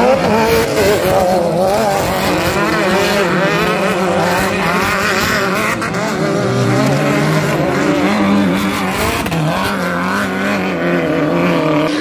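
Several off-road race buggies' engines revving loudly together, their pitch wavering up and down as they race through a dirt curve.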